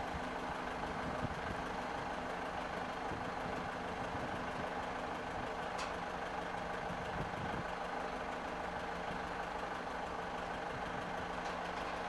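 Heavy diesel engine idling steadily: an even, low hum that does not change in pitch or level.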